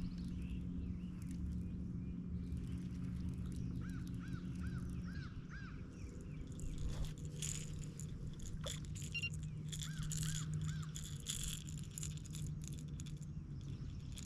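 Birds calling, two runs of about five short arched notes, over a steady low hum.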